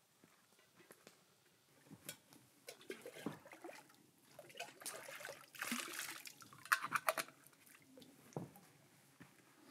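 Metal kettle dipped into lake water and filled, water gurgling into it for about a second in the middle, followed by a few sharp clinks of the kettle. Scattered steps and scuffs on shoreline rocks come before it.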